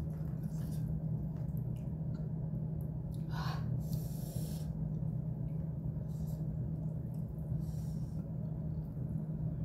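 Soft scrapes and clicks of a metal utensil and a silicone spatula against a serving platter and a glass sauce bowl, over a steady low hum. A brief louder scrape comes about three and a half seconds in, followed by a short breath.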